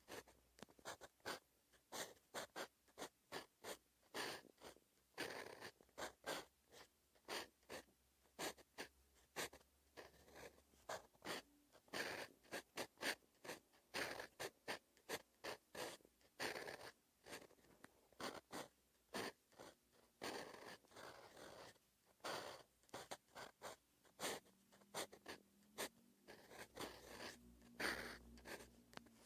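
Faint scratching of a steel fountain pen nib on paper as it writes Korean letters, stroke by stroke. Many short, quick strokes come in small clusters with brief pauses between them.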